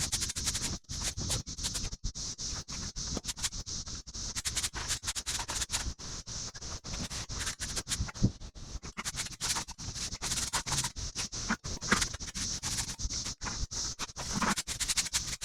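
Stiff broom sweeping joint sand across paver bricks: a run of quick, irregular scratchy strokes.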